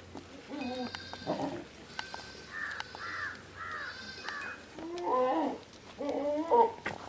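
Several goats bleating in a pen: a run of short, higher-pitched bleats in the middle, and louder, lower bleats near the end.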